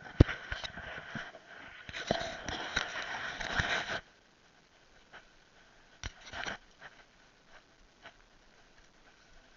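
Mountain bike riding over a rough dirt trail: tyres crunching and scraping over gravel and brush, with a sharp knock just after the start. After about four seconds it goes quiet apart from scattered light ticks and a short scrape.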